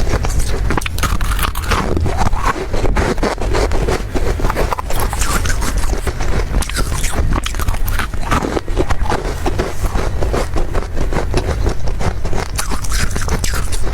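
Close-miked biting and chewing of ice, a dense run of crunches and squeaky scrapes, over a steady low rumble.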